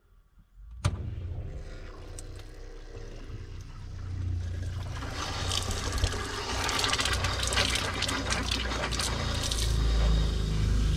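A click, then the camper's 12-volt water pump runs with a steady low hum as it draws RV antifreeze into the water lines. From about five seconds in, liquid sputters and splashes from the open faucet as the antifreeze pushes through.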